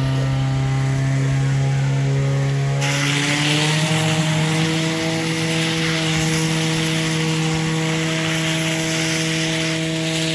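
Portable fire pump engine running flat out, a steady tone whose pitch steps up about three seconds in. From then on a steady hiss of water jets spraying from the nozzles joins it.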